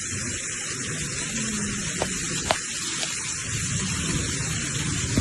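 Steady rain hissing, with three short sharp clicks a second or so apart about two to three seconds in.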